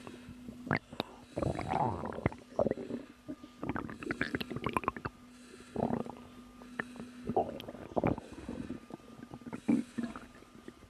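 Stomach growling and gurgling from digestion: irregular bubbling rumbles and squelches that come in bursts every second or two.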